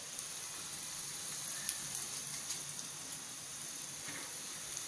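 Hot oil sizzling steadily in a pan as a tadka, with cumin seeds, chopped ginger, green chili, curry leaves, garlic and a pinch of asafoetida frying in it, and a few faint crackles now and then.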